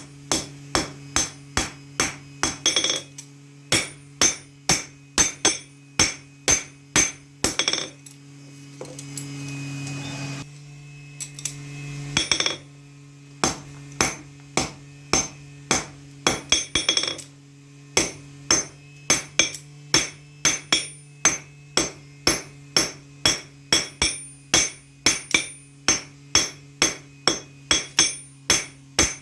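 Hammer blows ringing on metal while a knife blade is forged, about two to three strikes a second. The strikes break off for a few seconds near the middle, where a rising hiss is heard, then pick up again faster. A steady low hum runs underneath.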